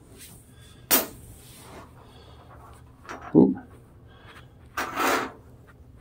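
Faint handling noises of a small metal sharpening rod and a folding knife over a tabletop: a sharp click about a second in, then a short rubbing sound near the end.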